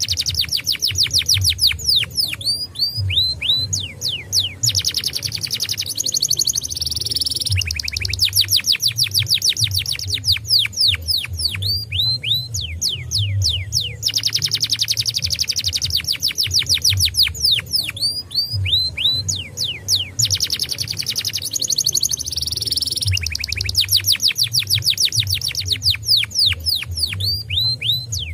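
Domestic canary singing: long runs of fast trills and rapid downward-sweeping whistles, the same sequence of phrases coming round about every eight seconds, over a low hum.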